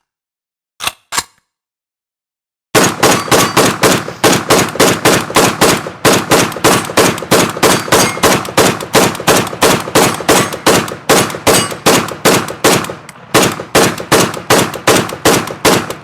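AK-47 firing on full automatic: two quick sharp sounds about a second in, then after a short silence a long continuous burst of rapid shots, about ten a second, with brief breaks partway through.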